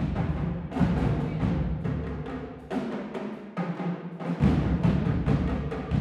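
Marching drumline of snare drums, tenor drums and bass drums playing a fast cadence. The low drum hits drop out for about a second and a half near the middle, leaving the higher drums, then come back in.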